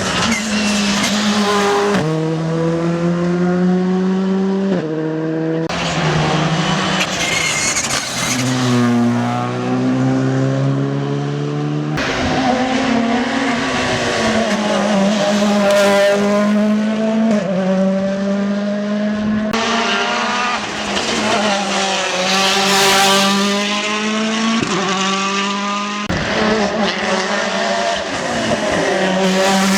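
Rally cars driven hard on a stage, one after another: the engines rev high, and the pitch climbs and drops sharply with gear changes and lifts off the throttle through corners.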